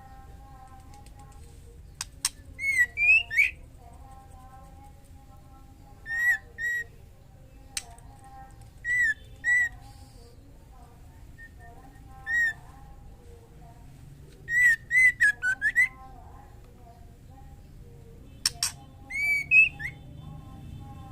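Female white-rumped shama calling: short, arched whistled notes in clusters of one to five every few seconds, with a few sharp clicks among them. These are the calls of a hen in breeding condition calling for a male.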